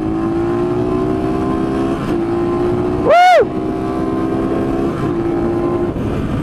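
Chinese dirt bike engine running under throttle, its pitch slowly climbing, with brief breaks about two and five seconds in; it is running on a torn intake manifold patched with silicone. About halfway through, a short, loud, high-pitched whoop rises and falls over the engine.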